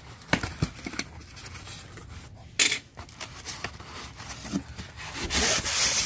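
Orange box cutter slicing packing tape on a cardboard box, with a few sharp clicks and a short loud rip about two and a half seconds in as the flaps come open. Near the end a longer rubbing builds up as a styrofoam tray is drawn out of the box.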